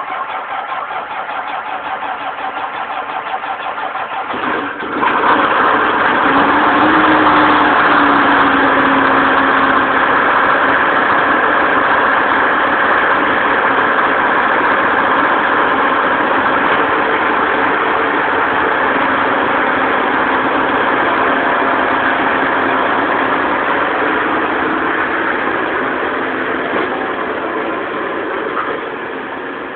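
Bobcat 753 skid steer's diesel engine during startup: a lower, evenly pulsing sound for the first few seconds, then it becomes suddenly louder about five seconds in and runs on steadily, easing off slightly near the end.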